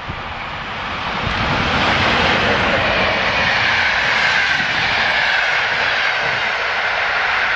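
EU07 electric locomotive and its passenger coaches passing at speed: the rush of wheels on rail grows louder over the first two seconds and then holds steady as the coaches go by. A few sharp knocks are heard near the start.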